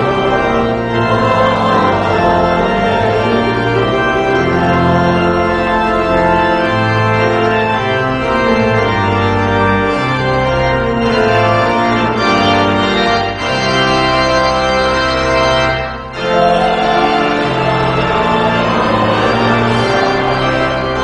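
Pipe organ playing a hymn in full sustained chords, the chords changing about once a second, with two brief breaks between phrases about 13 and 16 seconds in.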